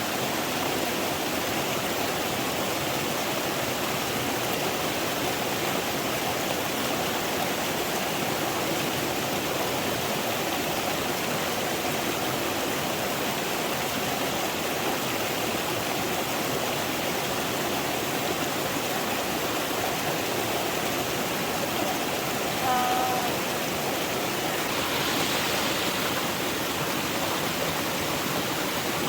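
Steady rush of running water from a stream. About two-thirds of the way in, a brief high-pitched call sounds once over it.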